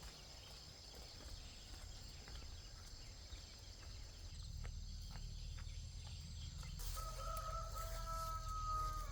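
A rooster crowing once near the end, one long held call, over a steady high-pitched background hiss.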